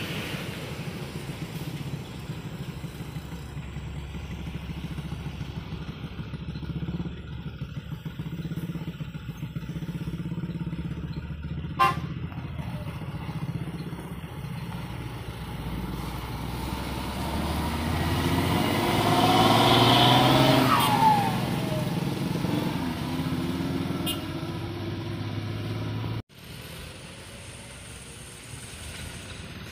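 Road traffic engines, with a large intercity bus coming close and passing. It is loudest about two-thirds through, with a falling pitch as it goes by. After a sudden cut, a light truck's engine runs more quietly.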